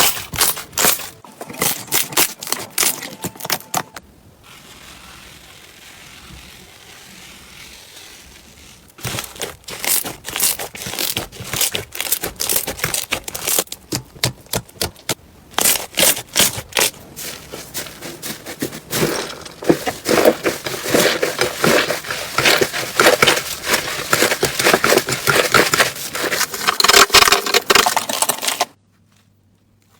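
Crunchy slime being squeezed and pressed by hand, giving rapid crackling and popping. A softer, quieter stretch comes a few seconds in, and the crackling stops suddenly near the end.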